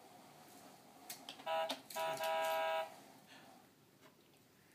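Electronic horn of a toy ride-on's steering wheel: a short beep about a second and a half in, then a longer, steady buzzy beep.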